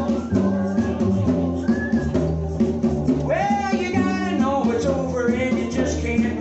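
Live gospel band playing a song: a singing voice over a moving bass line and a steady beat.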